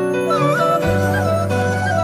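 Background music: a wavering, ornamented lead melody that comes in about half a second in, over held low bass notes.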